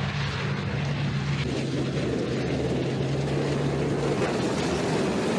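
Steady mechanical drone like an engine running, a low hum under a rushing noise; the hum drops out about four seconds in.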